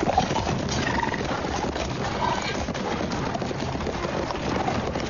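Many horses' hooves clattering together in a dense, steady jumble of hoofbeats.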